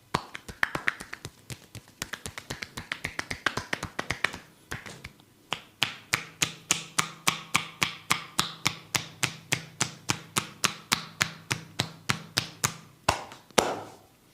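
Barber's hands striking skin in a rapid percussive "skin cracking" massage, giving a run of sharp cracks. Quick and uneven at first, then a steady beat of about four a second, with two louder strikes near the end.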